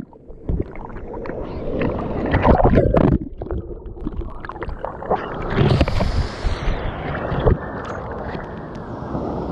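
Water splashing and sloshing close to the microphone, with irregular knocks, over a rush of water that turns steadier near the end.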